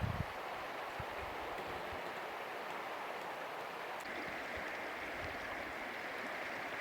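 River water flowing in a steady rushing hiss that grows a little brighter about four seconds in. A few low thumps at the very start.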